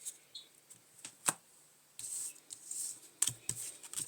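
Playing cards being handled and laid out on a table: a sharp snap a little over a second in, then soft sliding rustles and light clicks.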